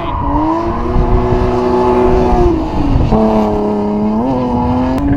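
Drift car engine held at high revs, climbing in the first second and then steady, dropping about three seconds in and holding lower, with a brief rev blip near the end.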